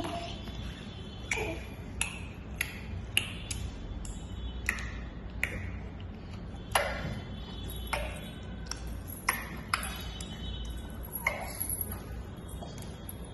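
Sharp short clicks, about a dozen at irregular intervals, each with a brief ringing ping.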